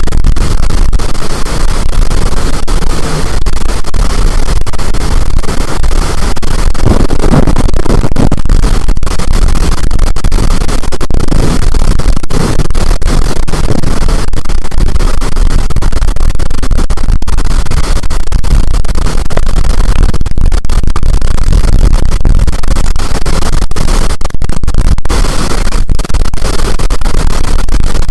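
Strong storm wind buffeting the microphone: a loud, continuous rush of noise, distorted and clipping, heaviest in the low end.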